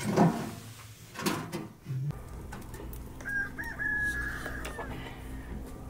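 A rooster crowing once, a single drawn-out call of about a second and a half in the second half, over the low steady rumble of a wood fire burning in a sheet-metal box stove.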